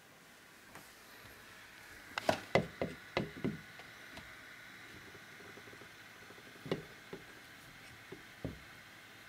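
Hard knocks and clatter of a painted statue being handled and set onto its base on a desk: a quick run of knocks about two seconds in, then a few single knocks.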